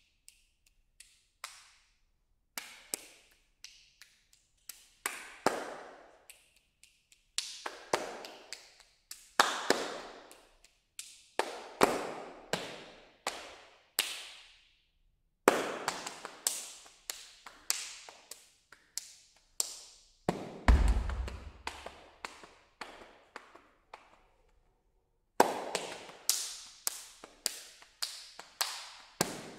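Body-percussion duet: two performers' hand claps and hand strikes in quick rhythmic phrases broken by a few brief silences, each stroke ringing briefly in the hall. A low thump lands about two-thirds of the way through.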